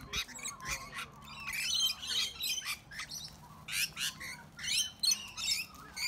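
Parrots screeching: rainbow lorikeets and sulphur-crested cockatoos feeding together, giving many short, shrill calls in quick succession.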